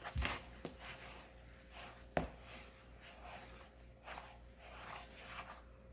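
Stirring wet flour into a dough in a mixing bowl: soft, repeated scraping strokes, with one sharp knock of the utensil against the bowl about two seconds in.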